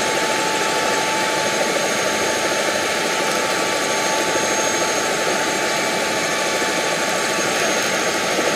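EcoStar (Airbus EC130) tour helicopter's turbine engine and rotors running, heard from inside the cabin as a loud, steady rushing with a faint high whine.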